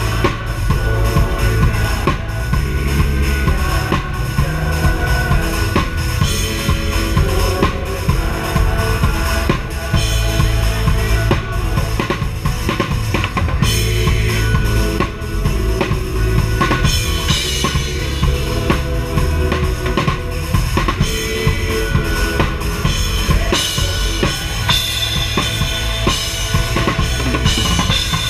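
Drum kit played continuously, heard from right beside the kit: kick drum, snare and cymbals driving a full live band with electric guitar.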